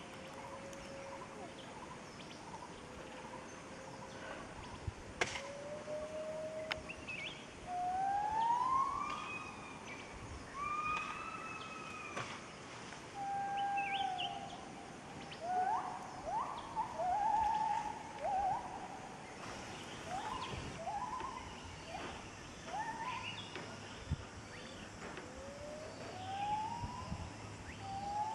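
Gibbons singing: long whooping calls that glide up and down in pitch, speeding up into a run of short, quick rising notes in the middle, then slower rising whoops near the end.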